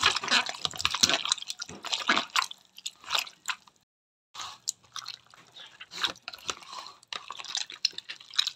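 Wet squelching and squishing of hands kneading and squeezing raw fish pieces and heads in vinegar, washing off the fishy smell. Irregular, with a short pause about halfway through.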